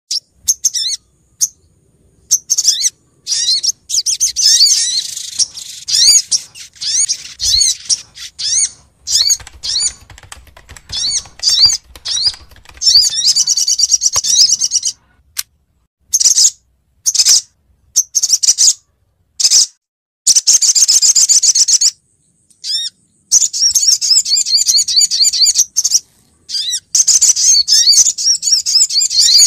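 Female sunbird (sogok ontong) calling: rapid, high-pitched twittering chirps in bursts of a second or more, broken by short sudden gaps. It is used as a lure call to draw in males.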